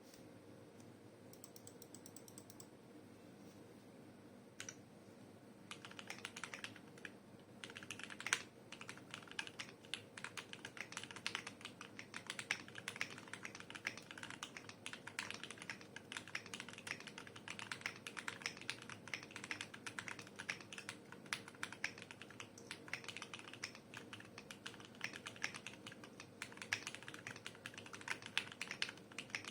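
Typing on a mechanical keyboard with Durock T1 tactile switches (67 g, full nylon housings), PBT keycaps and a gasket-mounted brass plate in a stacked acrylic case. After a few faint clicks, steady fast typing begins about six seconds in and keeps on, with one louder keystroke soon after it starts.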